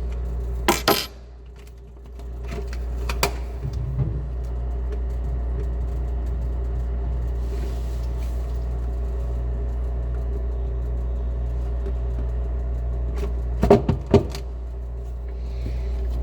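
Steady hum of a running refrigerator, with a few sharp plastic clicks and knocks as its control panel housing is handled. The hum drops away abruptly about a second in and builds back up over the next few seconds, then dips briefly again after two knocks near the end.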